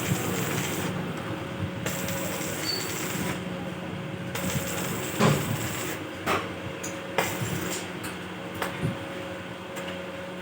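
Metal workshop noise: a steady machine hum with a hiss that comes and goes every second or two, and a few sharp metal knocks about halfway through.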